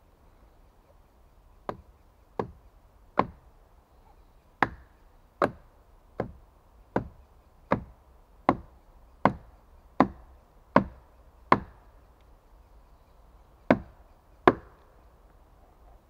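Steel axe chopping into wood: about fifteen sharp blows, most about three-quarters of a second apart, with a short pause before the last two.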